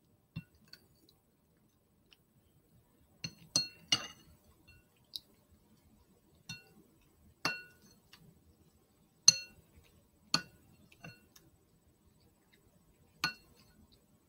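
A utensil clinking against a dish, about a dozen light strikes at uneven intervals, each with a short ring at the same pitch.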